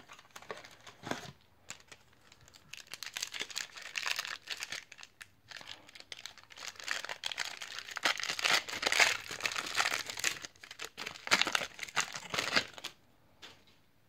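A 1993 Upper Deck baseball card foil pack being torn open and its wrapper crinkled: bursts of crackling, loudest about eight to nine seconds in and again a little before the end.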